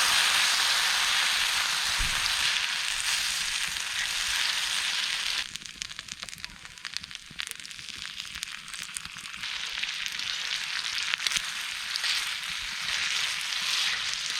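Food sizzling in a hot pan, a dense hiss flecked with crackles. It eases off after about five seconds and picks up again near the end.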